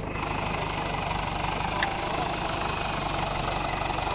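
Farm tractor diesel engine running steadily up close, with a short click a little under two seconds in.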